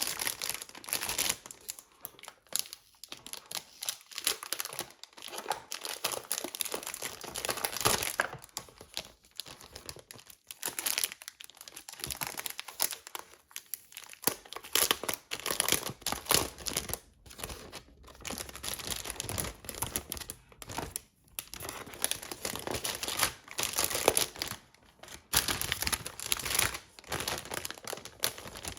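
Keyboard packaging crinkling and rustling in irregular bursts as it is handled, with some tearing.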